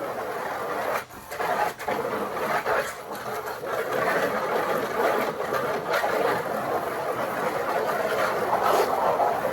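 Water rushing and splashing as a small bird pool is rinsed out, a steady rush that breaks off briefly twice near the start.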